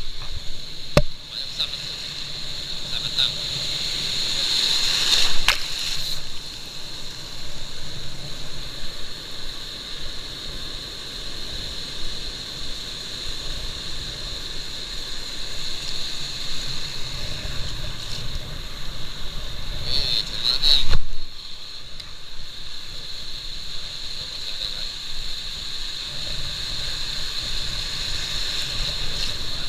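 Water sloshing against a kayak hull, with strong wind buffeting the microphone and a steady high hiss; it swells louder twice, about five and twenty-one seconds in.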